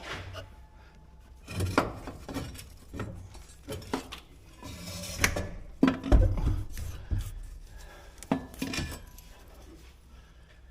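Hand tools and metal engine parts clinking, knocking and scraping in irregular bursts, with the loudest knocks about 2, 6 and 9 seconds in: work on a truck's exhaust manifold bolts as the manifold is taken off.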